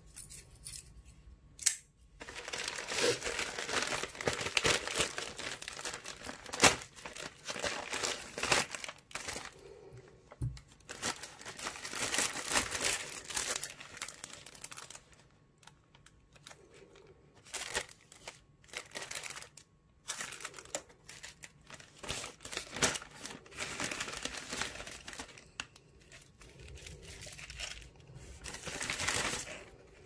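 A plastic courier mailer torn open and its packaging handled: stop-start crinkling of plastic bags and paper, with a few sharp clicks.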